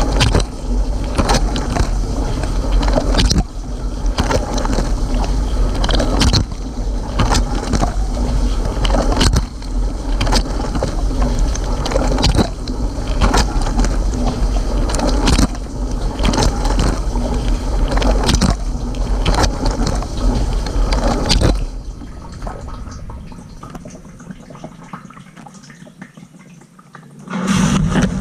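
Water spraying inside a Cylinda dishwasher during its rinse cycle, heard from inside the wash chamber: a loud, steady rush of water with a sharp surge about every three seconds. The spray stops about three-quarters of the way through, leaving a much quieter background. Near the end it starts again with a brief low hum.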